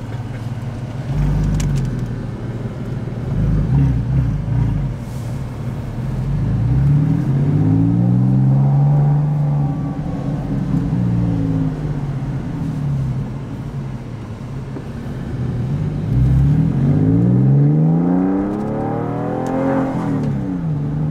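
Porsche 996's flat-six engine, its mufflers bypassed with straight pipes, heard from inside the cabin while driving. The revs climb as the car accelerates, about a third of the way in and again near the end, falling back after each pull.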